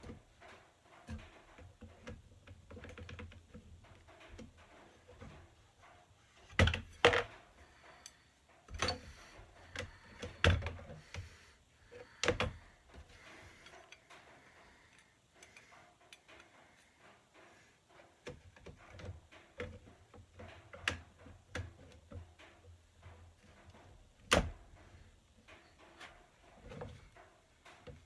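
Irregular clicks, taps and knocks of printer-kit parts and hand tools being handled during assembly, with a cluster of sharp knocks from about six to thirteen seconds in and one more near the end.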